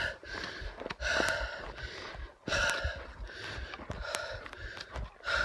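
A hiker breathing heavily, close to a chest-mounted phone's microphone, with a breath about every second and a half. Faint sharp clicks are heard between the breaths.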